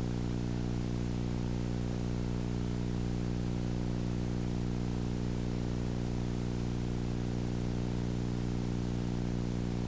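A steady low hum with many even overtones under constant hiss, unchanging throughout.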